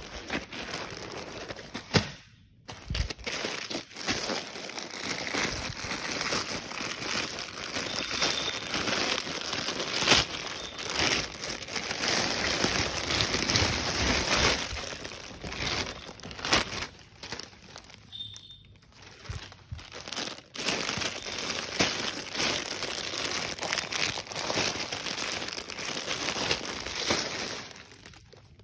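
Packaging from a clothing parcel being handled and unwrapped: close-up crinkling and rustling, nearly continuous, with a few sharp clicks and two short pauses.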